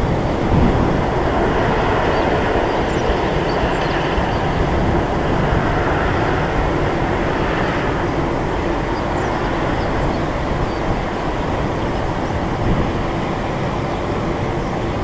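Boeing 747-400 freighter's four jet engines running at low power as it taxis: a steady, distant rumble with no change in level.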